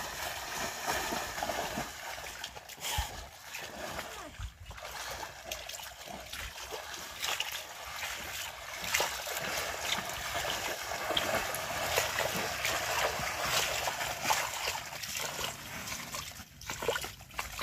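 Footsteps splashing and wading through shallow, muddy floodwater on a dirt path: irregular splashes over a steady hiss of water.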